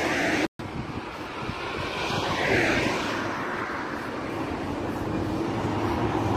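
Roadside motorway traffic noise: a steady rush that swells about two to three seconds in as a vehicle goes by. The sound cuts out completely for an instant about half a second in.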